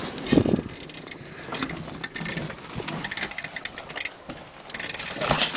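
Irregular clicks, knocks and scraping of someone clambering over loose dumped bricks in a cellar, with a louder knock about half a second in and a denser run of clicking and scraping near the end.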